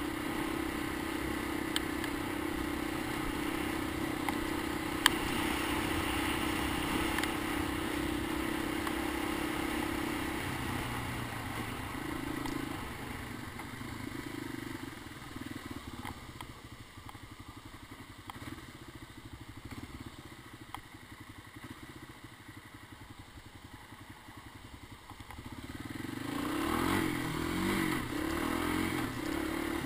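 Honda ATC250ES Big Red three-wheeler's single-cylinder four-stroke engine running under way at a steady speed. It eases off and goes quieter about halfway through, then picks up again near the end.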